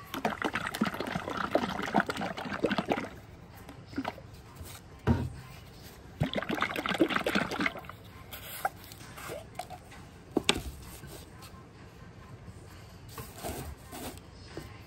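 Jar of liquid pottery glaze shaken hard by hand, the glaze sloshing inside, in two bursts of about three seconds and a second and a half. A few single knocks of jars handled on the table come in between.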